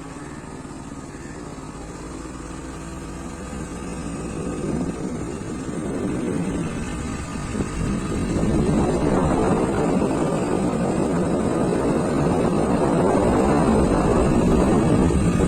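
Motorbike engine running while riding, growing louder over the first half. From about halfway through, a rushing wind noise builds in on top.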